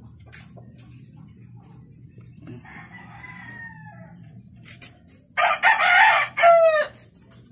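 A rooster crows loudly late on: a harsh call of about a second and a half that falls in pitch at its close. About three seconds in comes a fainter drawn-out call that also falls in pitch.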